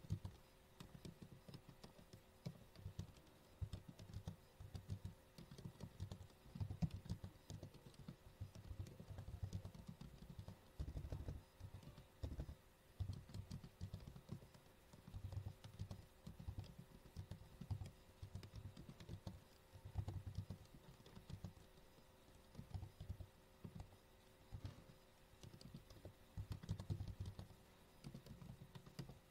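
Faint computer keyboard typing: runs of quick keystrokes with short pauses between words and phrases.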